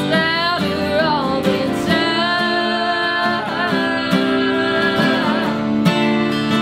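Two acoustic guitars playing under a woman's singing, with a man's voice joining in harmony. The voices stop about five seconds in, and the guitars carry on alone.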